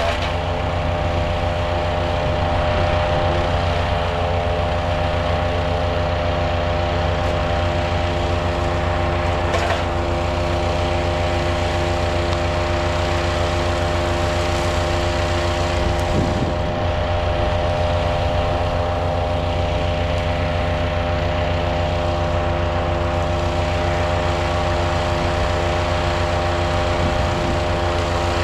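Powerfist 420cc gas wood chipper running steadily at a constant engine speed, with a slight change in pitch about sixteen seconds in.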